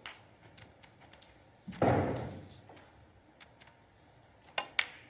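Snooker balls on the table: about two seconds in, a loud thud with a short tail as the black drops into a pocket. Near the end come two sharp clicks a quarter of a second apart, the cue tip striking the cue ball and then the cue ball hitting a red.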